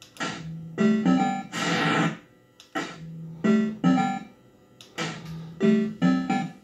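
Bell-Fruit Cash Explosion fruit machine playing its electronic jingle: a short phrase of keyboard-like notes repeating about every two and a half seconds, with a swooshing sound effect early in the first repeat.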